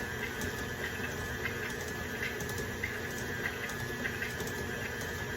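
Electric mixer running steadily with a constant whine, creaming the pound cake batter while sugar is added slowly.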